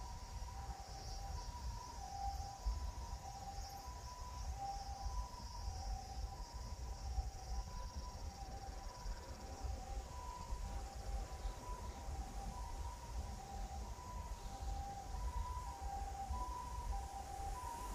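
Two-tone hi-lo siren steadily alternating between a higher and a lower pitch, about a second and a quarter per cycle, the "pee-poh" pattern of a Japanese ambulance. Wind rumbles on the microphone throughout.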